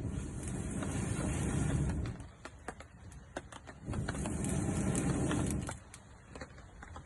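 Hand bellows pumping air into a campfire in long puffs, two of about two seconds each with a pause between, while the fire crackles and pops.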